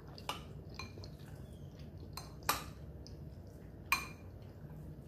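Metal spoon clinking and scraping against a glass bowl as it digs into pot pie: four short clinks, the loudest about two and a half seconds in.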